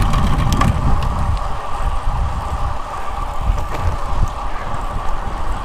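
Wind buffeting the microphone of a handlebar-mounted camera on a road bike riding along pavement, over a steady higher hum from the rolling bike. A few faint clicks come in the first second.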